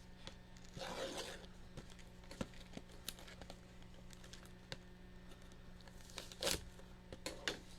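A sealed trading-card box being unwrapped by hand: its plastic wrap tears and crinkles, with a burst of rustling about a second in and scattered sharp clicks, the loudest about six and a half seconds in. A faint steady hum runs underneath.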